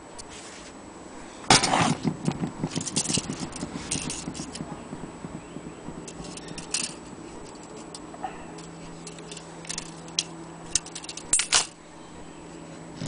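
Metal clinking and rattling as a longcase clock movement and its chains are handled: a sharp knock, then a couple of seconds of quick jangling, scattered clicks, and a short clatter near the end.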